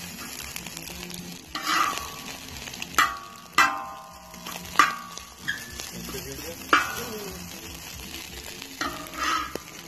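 Metal spatula scraping and clanking against a steel plow-disc cooker while hash browns, eggs and bacon sizzle on it. About six sharp scrapes and clanks, some with a short metallic ring, over the steady sizzle.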